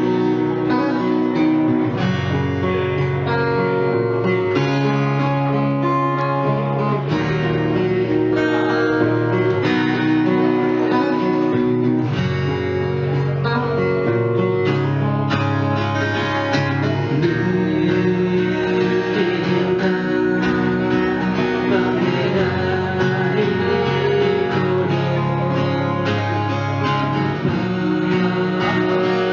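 Two acoustic guitars played live together, strummed and picked in steady chord changes, with a male voice singing at times.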